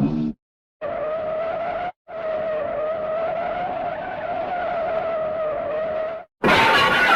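Cartoon tyre-screech sound effect: a skid of about a second, then after a short gap a longer screech of about four seconds with a wavering squealing tone. Near the end a louder, different sound effect cuts in.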